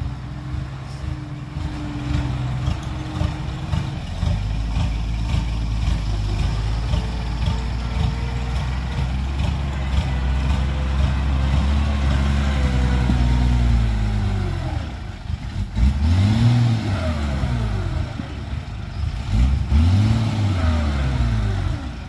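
Diesel dump truck engine running under load, with a steady heavy drone. Near the end it revs up and falls back twice, a few seconds apart, as the loaded truck pulls away through loose dirt.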